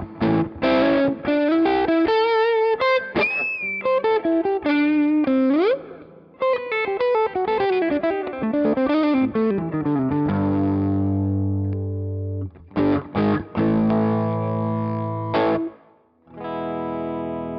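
Electric guitar, a Gibson SG with Righteous Sound R-Top humbuckers, played through a One Control Honey Bee overdrive into a Marshall Bluesbreaker amp: an overdriven single-note lead with string bends and vibrato, then sustained ringing chords. The playing stops about sixteen seconds in and a fresh chord rings out near the end.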